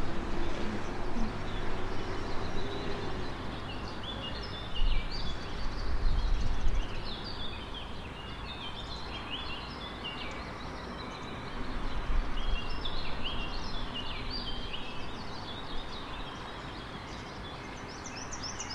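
Outdoor ambience of many small birds chirping over a steady hiss, with gusts of wind buffeting the microphone about five seconds in and again about twelve seconds in.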